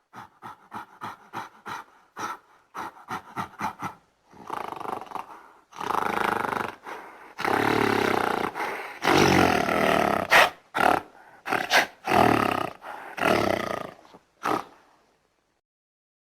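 Gorilla vocalizing: a quick run of short calls, about three to four a second, for the first four seconds, then a string of long, loud roars, the loudest in the middle, stopping about fifteen seconds in.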